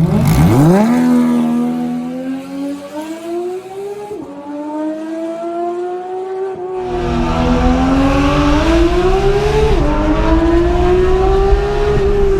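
Porsche 911 GT3 RS naturally aspirated flat-six through a straight-pipe exhaust with its valves open, pulling hard: the revs climb steeply at first, then keep rising with two sharp drops at upshifts about four and ten seconds in.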